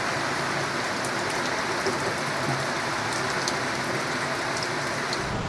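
Steady rain falling on the sea surface, an even hiss with scattered sharper drop ticks.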